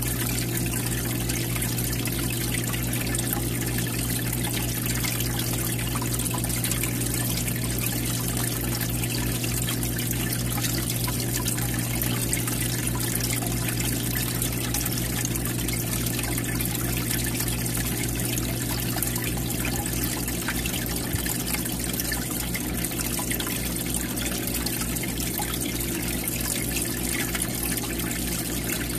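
Aquarium water trickling and splashing steadily at the surface where the tank's circulation tubing enters, over a constant low hum.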